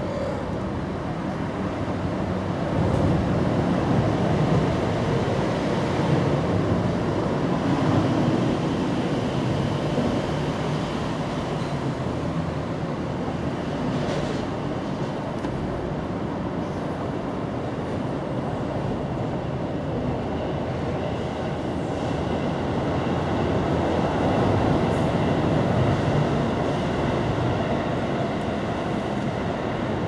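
Steady rumbling background noise, louder a few seconds in and again near the end, with no meowing heard.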